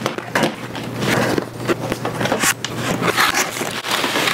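Cardboard toy packaging being opened by hand: the box and its flaps scraping, rubbing and crinkling in many short, sharp strokes.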